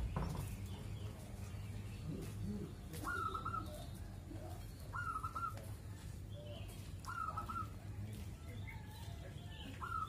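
Zebra dove (perkutut) cooing: a quick rising note running into a rapid string of notes, repeated about every two seconds, four times, over a low steady hum. A sharp knock sounds right at the start.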